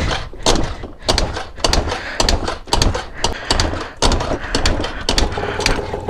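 Yamaha Jog scooter being kick-started with a dead battery: a quick series of kicks, about two a second, each a hard knock. Near the end the engine catches and settles into a steady running note.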